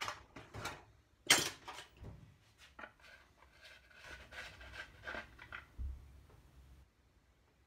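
Metal clinks and knocks of a screwdriver and small parts against the casing of a BSA A70 Lightning engine being dismantled, the loudest clink a little over a second in.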